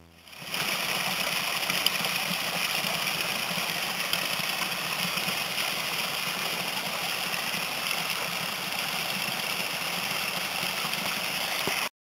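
Small waterfall splashing down a rock face onto stones: a steady rushing of water that comes up within the first half-second and cuts off suddenly at the end.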